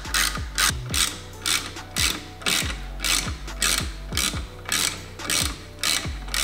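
Ratchet wrench clicking in short repeated strokes, about two to three clicks a second, as it tightens the brake caliper bolts.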